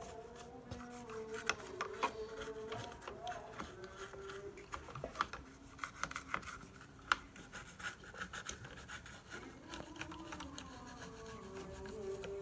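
Irregular small clicks, taps and scraping of hand tools and parts being handled during repair work on a power amplifier, with faint music in the background.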